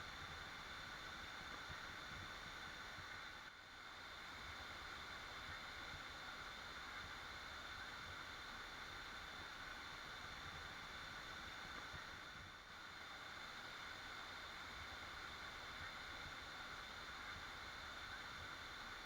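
Waterfall rushing in a steady, even roar of falling water, dipping slightly twice for a moment.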